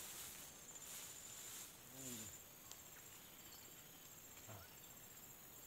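Near silence outdoors: faint insects trill steadily, with a short faint pitched call about two seconds in and another a little after four seconds.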